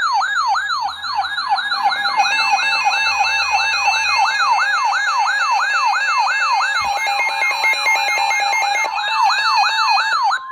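Electronic siren in a fast yelp, its pitch sweeping up and down about four times a second, with a steady tone and a stepping higher beeping tone layered over it from about two seconds in. It cuts off at the end.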